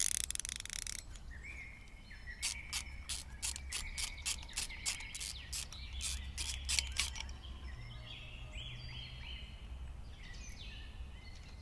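Ratcheting screwdriver clicking in a regular run of about three or four clicks a second as it unscrews the crank cover plug on a Royal Enfield Scram 411 engine cover. Birds chirp faintly in the background later on.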